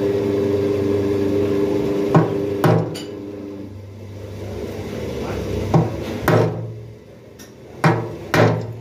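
Hammer striking a steel chisel into a marble slab, six sharp blows in three pairs of two. A steady mechanical hum fades out after about three seconds.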